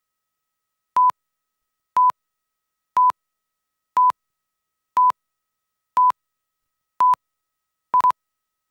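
Countdown leader beeps of a commercial's slate: short steady test-tone pips, one every second, eight in all, with dead silence between. The last pip is broken into two.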